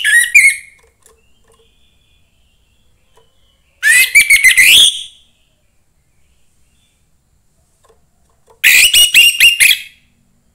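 Young wild-caught orange-headed thrush singing in short, loud phrases of rapid, whistled and chattering notes, each about a second long. One phrase trails off at the very start, another comes about four seconds in and a third near nine seconds, with quiet gaps between.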